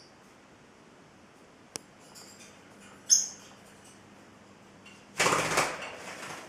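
Black-headed caique splashing in a plastic water-dish bird bath: a loud burst of splashing and wing-flapping, under a second long, near the end. About three seconds in, one short, sharp high chirp from a parrot, with a light click before it.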